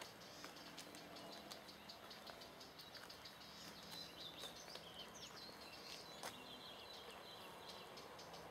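Faint small-bird chirping and twittering, a few seconds in and lasting about three seconds, over low background noise with a few soft clicks.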